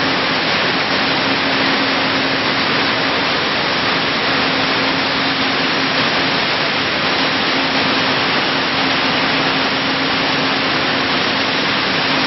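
Seed-cleaning machine with a motor-driven vibrating screen running, giving a loud, steady noise with a low, even hum under it.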